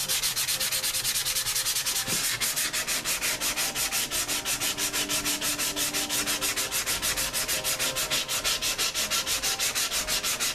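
Sandpaper on a Soft Sanders foam sanding block being rubbed by hand over cured body putty in rapid, even back-and-forth strokes, several a second.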